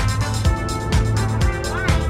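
Background music with a steady beat and a bass line, with a short sliding tone near the end.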